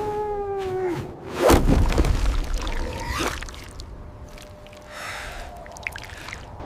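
A long held cry that breaks off about a second in, followed by a loud whoosh with a deep rumble that fades over the next two seconds.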